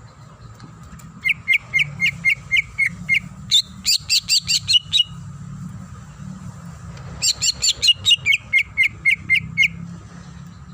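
Green leafbird (cucak ijo) singing: two bouts of rapid, sharp, repeated chirping notes. The first starts about a second in and lasts about four seconds, dropping-pitch notes followed by higher ones. The second starts about seven seconds in, higher notes first then lower, with a steady low hum underneath.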